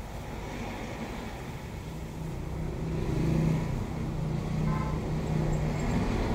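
A motor running with a low, steady hum that grows louder about two to three seconds in.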